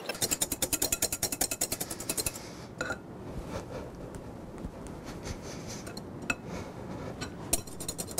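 Wire balloon whisk beating sugared egg whites into meringue in a glass bowl, the wires clicking and scraping against the glass. A fast, dense run of clicks for the first two seconds or so, then slower, softer strokes with an occasional clink.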